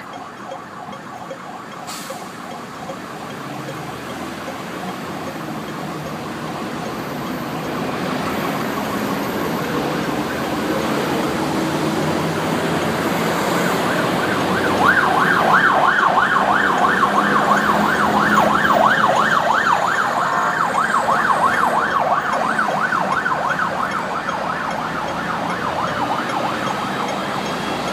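Hong Kong Fire Services light rescue unit's siren yelping, a fast up-and-down sweep several times a second. It grows louder as the vehicle approaches, is loudest as it passes about halfway through, then fades a little as it drives away, with engine and traffic noise underneath.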